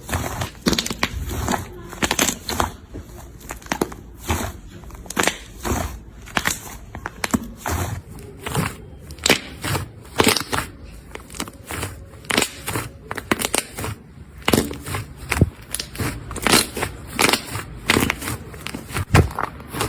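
Slime being squeezed and pressed by hand, making a string of irregular crackling pops and squelches that come faster from about a third of the way in.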